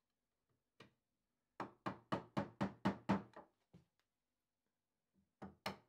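Mallet striking the handle of a wood chisel that is cutting a groove in an oak frame. One blow, then a quick run of about eight blows at around four a second, a single blow, and a few more near the end.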